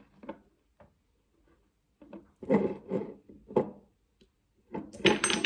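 Hands rummaging through a collection of perfume bottles on a table: a few rubbing and knocking noises about two and a half seconds in, then sharper clicks and knocks near the end.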